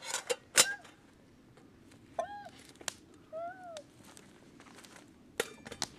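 Metal clinks and clanks of a stainless steel pot lid being fitted onto a pot and the pot handled, with a sharp clank about half a second in and a few quicker clinks near the end.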